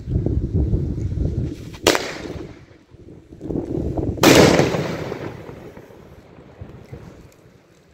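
Ground firecrackers going off: two sharp bangs about two and a half seconds apart, the second louder, with a long echoing tail that fades away.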